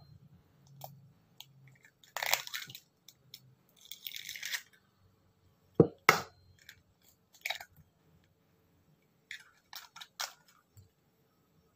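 Eggs being cracked open over a ceramic bowl: crackly crunches of breaking shell, two sharp taps about six seconds in, and a few lighter clicks of shell near the end.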